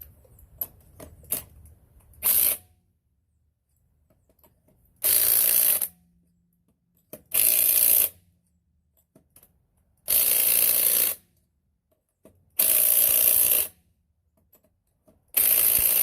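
Cordless power tool run in five bursts of about a second each, every two to three seconds, after a few light clicks: snugging down the bolts of the new rear shocks and springs before final torquing.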